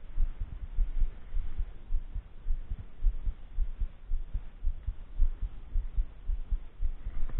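Wind buffeting the microphone: an irregular low rumble that rises and falls in uneven gusts.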